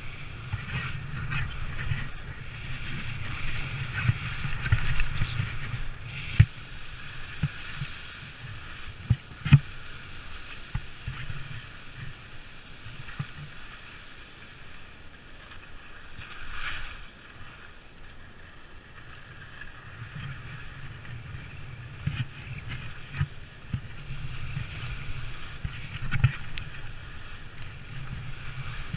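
Skis scraping and carving over firm snow in a steep descent, the sound swelling with each turn, with wind rushing over the microphone. There are a few sharp knocks, the loudest about nine and a half seconds in.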